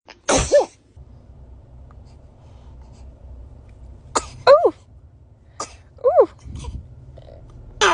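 A baby sneezing several times, small sharp sneezes: one near the start, then a quick run of them about four to six seconds in, some with a brief high note of the baby's voice.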